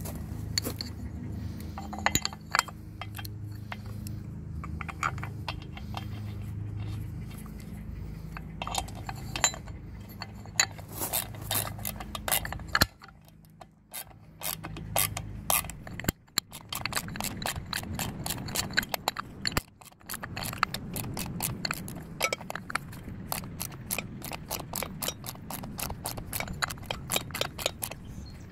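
Socket ratchet wrench clicking as it tightens the bolt of a new anode on a Mercury Bravo 3 outdrive, in quick runs of metallic clicks that become steady and rapid in the second half, over a low rumble that fades about halfway through.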